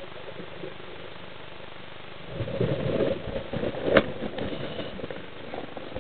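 Underwater noise heard through a camera housing: a steady hiss, then from about two seconds in a burst of irregular rumbling and crackle, with one sharp knock about four seconds in.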